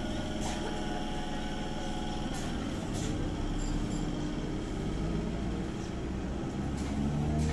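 BEML electric multiple unit local train starting to pull away from a platform, with a steady electric hum and a few sharp clicks. Near the end a whine begins to rise in pitch as it gathers speed.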